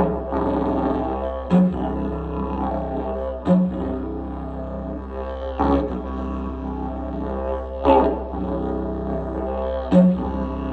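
Didgeridoo playing a continuous low drone with shifting overtones. About every two seconds a short, sharp accent comes in as the drone briefly breaks.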